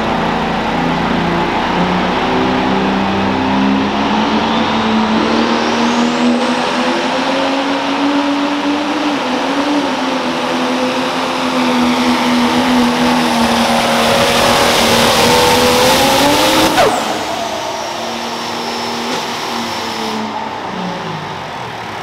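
Diesel engine of a John Deere 830 pulling tractor running hard under load on a pull, its note climbing slowly, with a high whine rising over it about five seconds in. About seventeen seconds in a sharp crack cuts through, the engine note drops away and winds down, and a high whine falls off: the engine has let go, spraying oil over the hood.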